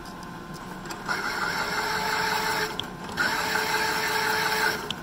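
Milling machine spindle driving a large twist drill through a steel pitman arm, enlarging the tie-rod-end hole: a steady machine whine with cutting noise, louder from about a second in and briefly dropping about three seconds in.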